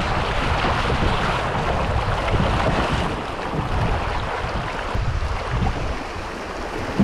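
Water rushing through a shallow river riffle around a kayak running downstream, with a gusty low rumble of wind on the microphone.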